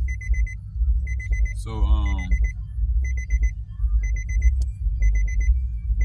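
A car's warning chime beeps in quick groups of about four high beeps, one group about every second, over a low rumble.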